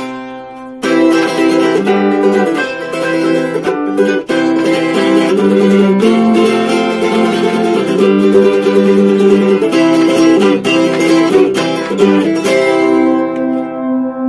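A 1926 Martin T-18 tiple, a small ten-string steel-strung instrument, being strummed in chords. The strumming keeps up a steady rhythm, and near the end a last chord is left to ring out.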